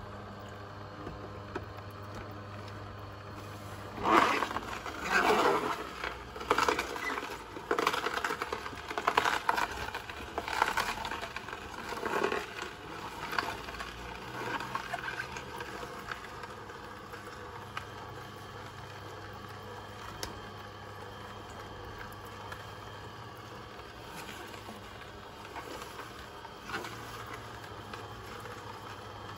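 Kuvings C7000 whole slow juicer running with a steady low motor hum, its auger crushing beetroot and carrot with loud, irregular cracking and crunching from about four to fifteen seconds in. After that it settles back to the hum with only occasional crackles.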